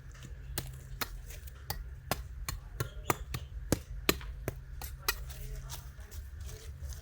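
A series of sharp, irregular knocks or taps, two or three a second, over a steady low hum.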